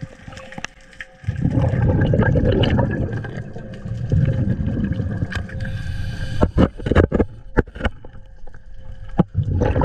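Water rushing and gurgling against a submerged camera as it moves underwater. The low noise starts suddenly about a second in, with scattered sharp clicks and knocks later on.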